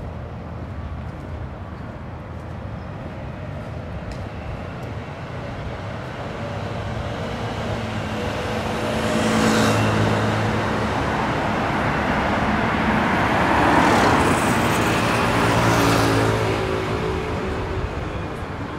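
Cars driving past on the bridge roadway: a steady traffic noise of tyres and engines that swells as vehicles go by, loudest about halfway and again about three quarters through.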